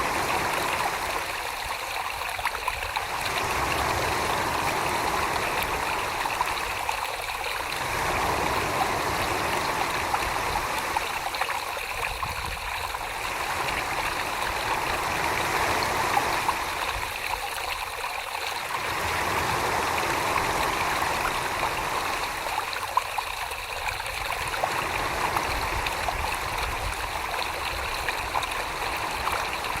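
Wet clay being worked by hand on a spinning potter's wheel, giving a steady watery swishing that swells and eases about every five seconds.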